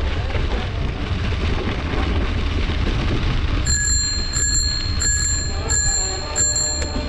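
Bicycle bell rung five times, each ring about two-thirds of a second after the last, starting a little past halfway. Underneath runs a steady rumble of wind and riding noise.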